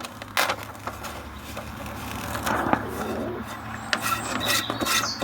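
Hands pressing and rubbing a self-adhesive hook-and-loop pad down onto a sander's metal disc plate, with a few light knocks and clicks.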